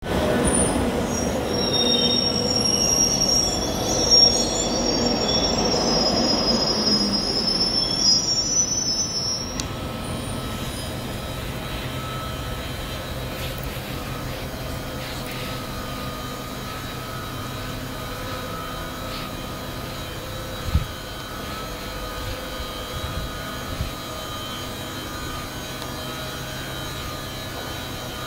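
London Underground Northern line 1995-stock train braking into the platform, its wheels and brakes squealing loudly until it stops and the squeal cuts off suddenly about nine seconds in. It then stands with a steady electrical hum, with a single thump about twenty seconds in.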